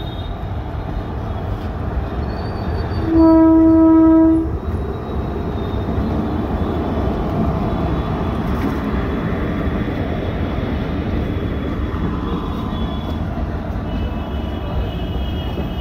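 Train running through the station with a steady low rumble, and a locomotive horn blowing one loud, steady blast of just over a second about three seconds in. Faint high tones come in near the end.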